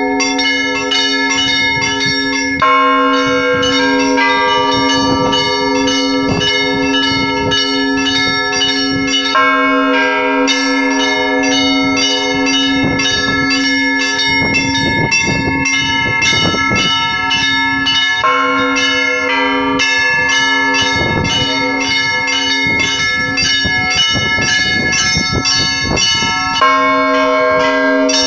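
A set of church bells rung by hand in the Russian manner: quick, uneven strikes on several smaller bells over a deeper bell tone that keeps ringing underneath.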